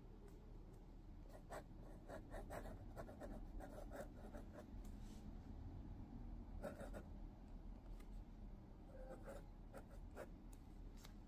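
A dip pen nib scratching faintly on paper while writing in cursive. The scratches come in three runs of short strokes with pauses between.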